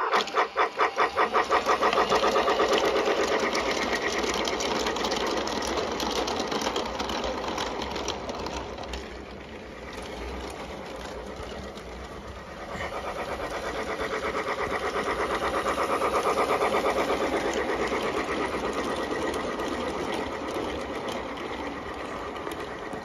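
Toy train set locomotive running on plastic track: a small electric motor whirring with a fast, rhythmic clatter of gears and wheels. It grows fainter partway through as the train moves away, then louder again.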